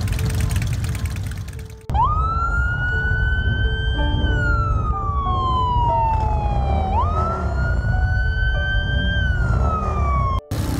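Police car siren wailing in long slow glides: a quick rise, a slow fall, a sharp rise again, then another fall, starting and stopping abruptly. Background music plays underneath throughout.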